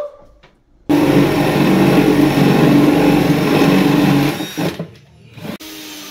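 Cordless drill boring through the back panel of a wall cabinet, starting suddenly about a second in and running steadily under load for about three seconds before stopping. A second, quieter run of the drill follows near the end.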